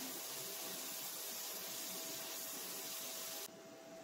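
Steady hiss of an air-powered rotary grinder running with a small mounted stone, with a thin steady whine under it. The higher hiss drops away for about half a second near the end.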